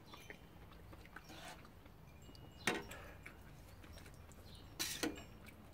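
Metal ladle knocking against a stainless-steel soup pot and a ceramic bowl as hot-pot soup is ladled out: a sharp knock about two and a half seconds in and a rougher, longer clatter near the end, with a few faint ticks between.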